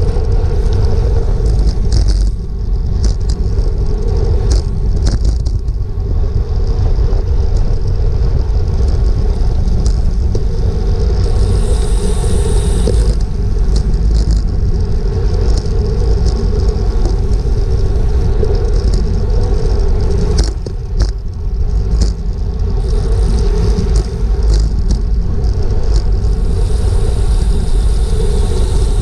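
Wind rushing over the microphone of a camera on a bicycle moving at about 25 mph, a steady heavy rumble, with road and tyre noise and a few short clicks from the bike.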